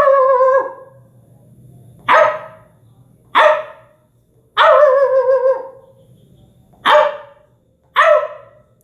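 A man imitating a pet dog barking with his voice: six barks, two of them drawn out with a wavering pitch.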